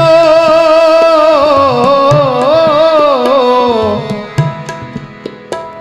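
Gurbani kirtan: a male voice holds one long, ornamented note that winds slowly downward and drops away about four seconds in, over harmonium and tabla. After the voice stops, softer tabla strokes and harmonium carry on.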